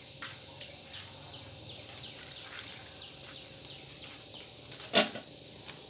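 Steady high-pitched insect chirring, with a few faint short chirps and one short sharp sound about five seconds in.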